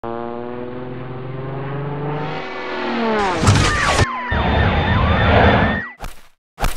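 Synthetic sound effects for an animated vehicle. A steady, many-toned hum drops in pitch about two and a half seconds in, then gives way to loud rushing engine noise crossed by sliding whistles that rise and fall. Near the end it breaks into short, abrupt bursts.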